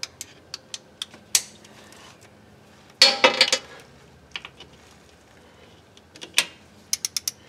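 Metal tool clicks and clatter as a socket on an extension and a preset click-type torque wrench tighten the front differential drain plug to 52 foot-pounds. The loudest clatter comes about three seconds in, and a quick run of four sharp clicks comes near the end.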